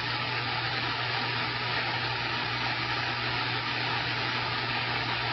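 CB radio receiver with its squelch open, putting out steady static hiss over a low hum, the sound of a carrier or weak signal with no voice on it.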